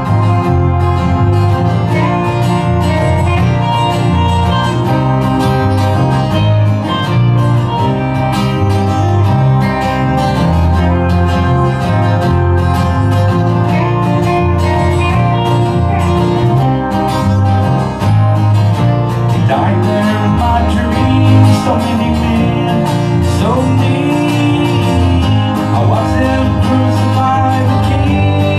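A country gospel band playing an instrumental break, with acoustic guitar strumming, a lead guitar line and keyboard over a steady bass line. The singer comes back in near the end.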